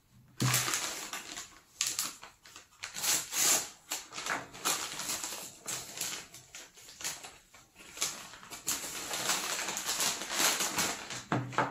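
Crinkling and rustling of a yellow padded paper mailer being handled and opened, a dense run of irregular crackles.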